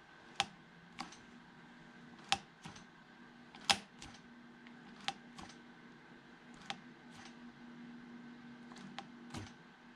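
Throttle grip of a 1983 BMW R65, engine off, twisted open and let spring back over and over on new throttle cables, with a sharp click at each end of its travel. There are six pairs of clicks, a second or two apart.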